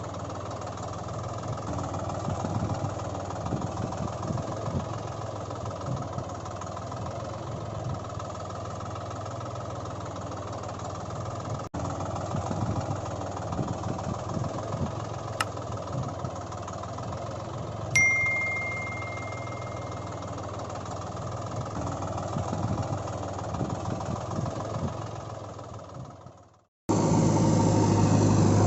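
Steady engine running and working, like a diesel excavator or tractor. About two thirds of the way through, a sharp click is followed by a single clear ringing tone that dies away. Near the end the engine sound fades out and then comes back louder.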